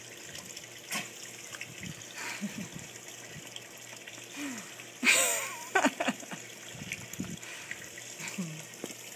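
Pool water lapping and trickling around a small terrier mix as he wades on the shallow ledge and settles into the water. About five seconds in there is a louder burst, followed by a short pitched vocal sound.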